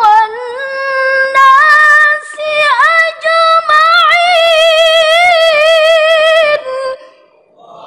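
A woman's voice reciting the Quran in the melodic tilawah style. She draws out the end of a verse in long held, ornamented notes that climb a step about one and a half seconds in and waver with quick turns before breaking off near the end.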